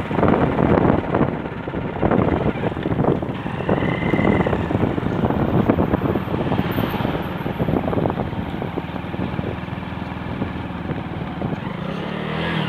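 Wind buffeting the microphone of a moving motorcycle, in uneven gusts, with the bike's engine running underneath.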